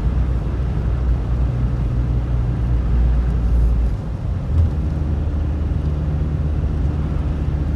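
Car engine and road noise heard from inside the cabin while driving: a steady low drone. About four seconds in the engine note shifts, with a brief dip and a short bump.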